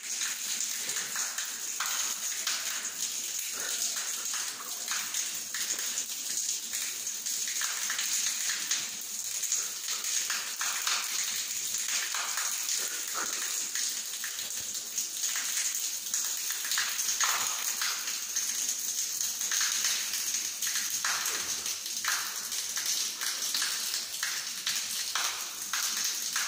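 Water left running from a wall-mounted shower head, a thin stream splashing steadily onto a tiled shower floor.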